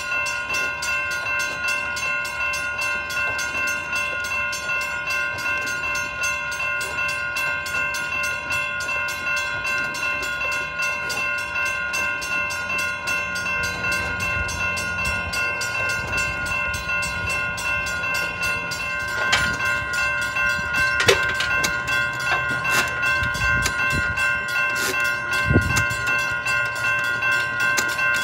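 Railroad crossing warning bell ringing steadily as the crossing stays activated, a malfunction put down to a burned-out coil in its hold clear device. A few sharp metallic knocks come in the second half.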